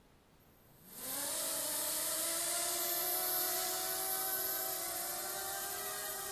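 Hubsan X4 micro quadcopter's motors and propellers spinning up about a second in, then running as a steady high whine with a hiss, the pitch climbing briefly before it levels off.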